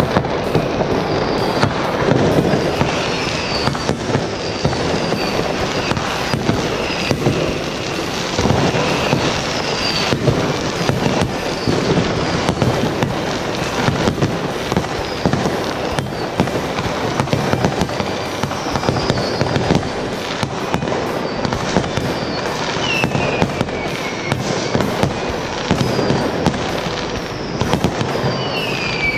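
Many New Year's fireworks and firecrackers going off at once: a dense, continuous crackling and banging. Short falling whistles come one after another throughout.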